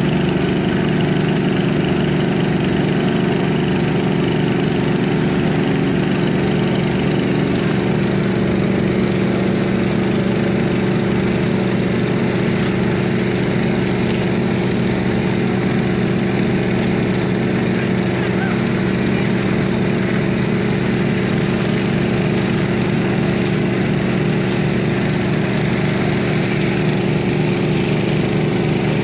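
Small engine running steadily at a constant speed, with an even, unbroken drone.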